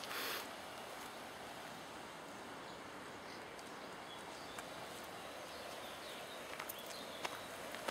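Steady outdoor background noise, an even low rush, with a brief hiss right at the start and a few faint clicks near the end.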